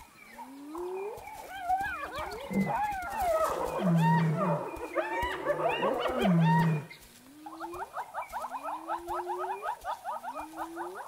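Spotted hyenas calling: rising whoops and squealing calls, with a few short low growls in the middle, then a rapid run of repeated cackling notes, about six a second, over the last few seconds.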